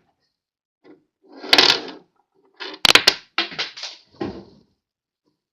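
Handling noise: a rustle about a second and a half in, then a few sharp clicks and short knocking, scraping sounds, like objects being picked up and set down.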